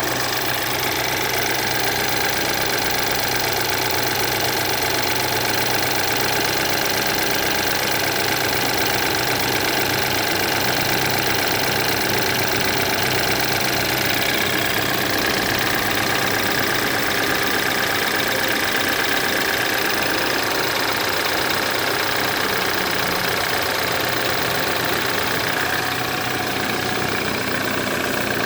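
BMW N20 four-cylinder turbo engine idling steadily, with the timing-chain noise that persists after the chain was replaced.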